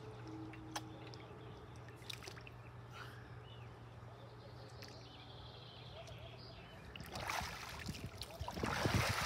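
Quiet lakeside water sound with a few faint clicks, then about seven seconds in a louder spell of water splashing and sloshing lasting about two seconds.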